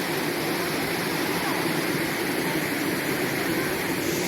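Steady rushing of a waterfall, an even noise without breaks.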